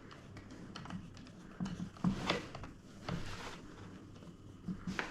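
Scattered light clicks and taps of a flathead screwdriver and small crossbow parts being handled as a screw is fitted and tightened.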